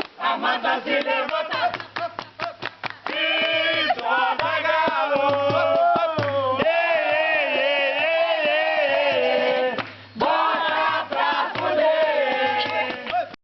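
Several voices singing a chant together, with quick clapping in the first couple of seconds and long, wavering held notes through the middle.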